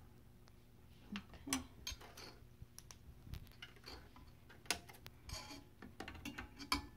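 Scattered light clicks and taps of fingers handling a flat ribbon cable and the parts around it inside a 3D printer's electronics bay, irregular, with the sharpest ones about a second and a half and nearly five seconds in, over a faint steady hum.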